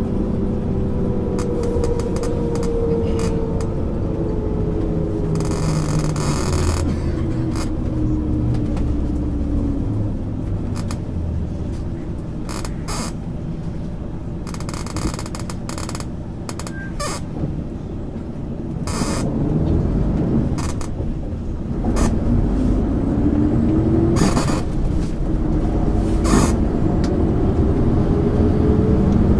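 1999 MAN ÜL 353 bus under way, its engine and drivetrain tone dropping steadily as it slows, then rising again as it picks up speed in the last third. Short hissing bursts and rattles come in over the running noise, the longest about six seconds in.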